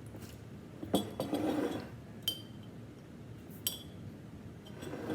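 Three light clinks of a glass against a hard surface, each with a short high ring, about one, two and a half, and three and a half seconds in.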